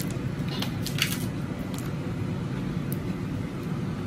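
Ice cubes clinking and water stirring as a hand moves okra pods around in a bowl of ice water, a few short clicks in the first second or so, over a steady low hum.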